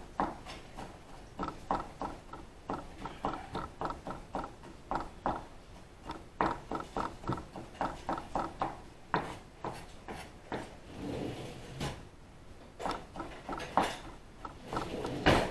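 Knife chopping on a cutting board: a run of quick, uneven taps a few times a second, with a short lull around the middle and a louder knock near the end.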